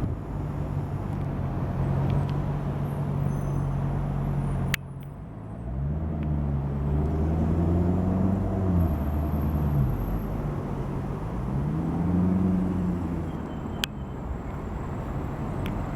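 Tuned Maserati GranTurismo's V8 running at a steady low idle, then, after a sharp click about five seconds in, revving up and falling back twice. A second sharp click comes near the end.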